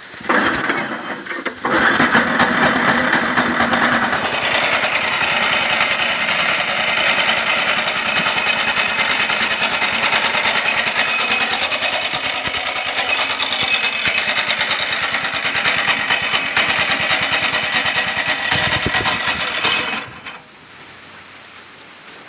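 Small Robin petrol engine, rigged as an outboard motor, running loud and steady with a rapid firing rhythm, coming up to speed about two seconds in and shut off abruptly about twenty seconds in.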